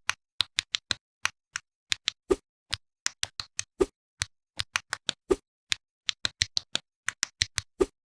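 A rapid, uneven series of short, sharp clicks and taps, about three or four a second, some with a dull thud beneath them, with silence between each.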